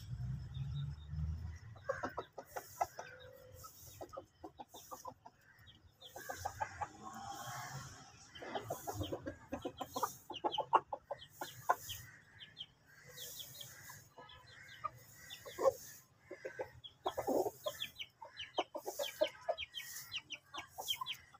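Aseel chickens clucking, short clucks coming in quick runs on and off throughout.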